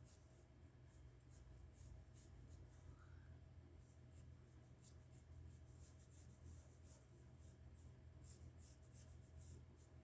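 Faint scratching of a graphite pencil sketching on sketchbook paper in short, irregular strokes, over a low steady hum.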